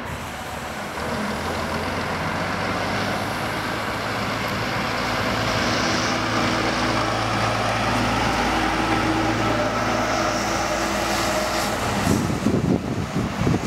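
Volvo FH16 610 truck's 16-litre straight-six diesel engine running steadily at low speed as the tractor pulls a refrigerated semi-trailer past, growing a little louder as it nears. Wind buffets the microphone near the end.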